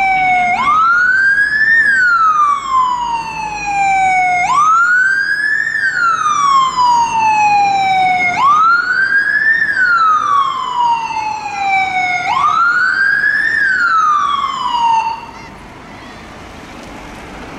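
Fire engine's siren on a wail: each cycle climbs quickly and falls away slowly, about four seconds apiece, four cycles in all. It cuts off about fifteen seconds in.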